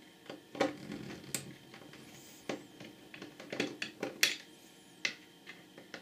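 Screwdriver working the power supply's mounting screws loose inside a metal switch chassis: a scattering of light clicks and small metallic taps.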